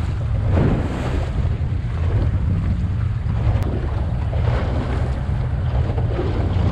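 Small outboard-powered boat under way at sea: wind buffeting the microphone over the rush of water along the hull, a steady loud rumble.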